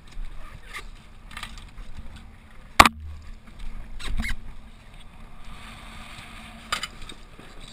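Water rushing and splashing against the hull of a Mystere catamaran under sail, with sharp slaps of spray hitting the hull and camera, the loudest a little under three seconds in and more around four seconds and near the end.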